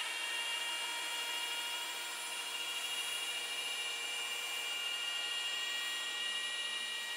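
Rotary polisher with a blue hard-foam cutting pad running steadily against a painted aircraft fuselage panel, giving an even motor whine. This is the aggressive knockdown step, cutting the oxidation off faded paint.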